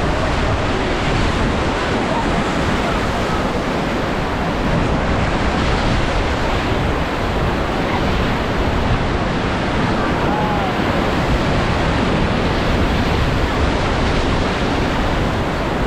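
Rushing whitewater of a river rapid, a steady dense wash of water noise with wind buffeting the microphone.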